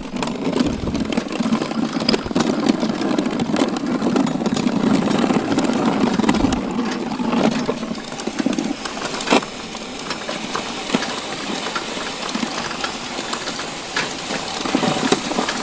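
Home-built pedal-powered snow plow moving along a driveway: the plow blade pushing and scraping snow off the pavement as the tyres roll through it, a steady rushing noise with many small clicks and knocks. It is a little louder for the first half or so and eases off later.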